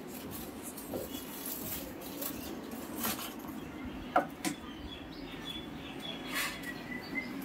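Footsteps of rubber-soled Xiaomi running shoes on a polished stone tile floor: a few soft steps and sole squeaks, the sharpest about four seconds in, over a low steady hum.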